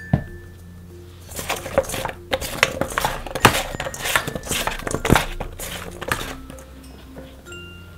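Salted zucchini slices tossed by hand in a stainless steel bowl: a dense run of soft wet slaps, clicks and scrapes against the metal, starting about a second in and stopping near the end. Light background music plays under it.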